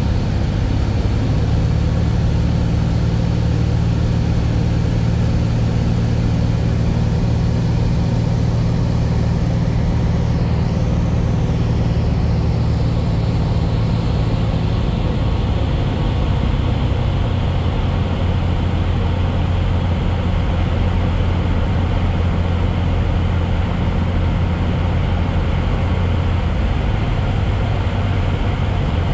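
Steady drone of an airplane's engines and propellers heard inside the cabin, a loud low hum with rushing air noise over it; the low hum shifts slightly about halfway through and again near the end.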